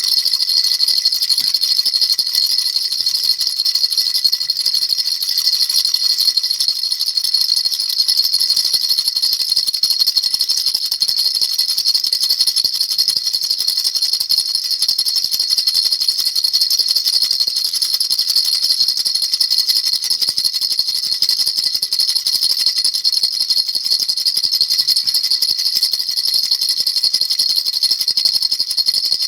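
Baby rattle shaken rapidly and without a break, a steady high-pitched rattling with a faint ringing edge.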